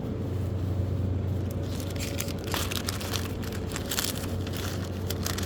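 A thin plastic produce bag crinkling and rustling as it is handled, starting about two seconds in, over a steady low hum.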